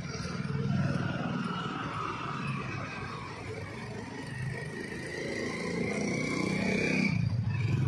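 Motor vehicle engines running, with one engine note rising steadily in pitch over several seconds and cutting off near the end.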